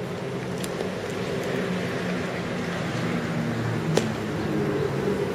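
Steady low hum of background road traffic, with one sharp click about four seconds in.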